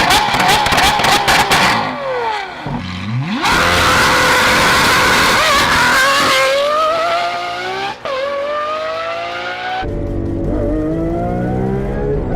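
Lamborghini Aventador SVJ's 6.5-litre V12 engine revving and accelerating in several short clips cut together. Its pitch climbs steeply, dips briefly about six seconds in and climbs again, with a falling-then-rising sweep of a car going past and pulling away around two to three seconds in.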